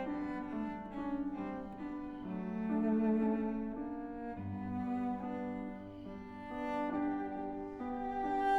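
Background music: a slow melody on bowed strings, cello-like, with piano.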